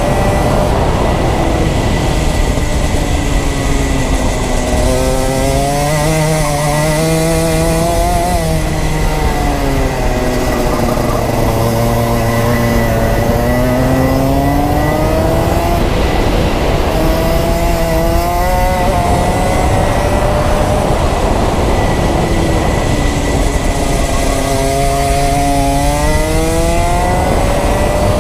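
Rotax Max 125 cc single-cylinder two-stroke kart engine under way on the track. Its pitch climbs as it accelerates and drops away as it comes off the throttle, three or four times over.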